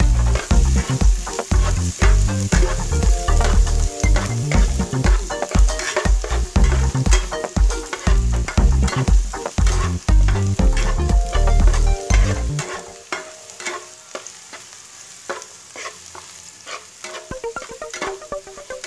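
Minced garlic and chilli sizzling in hot oil in a nonstick frying pan while a steel spatula stirs and scrapes them around in quick, repeated strokes. About two-thirds of the way through, the scraping grows lighter and the sizzle carries on.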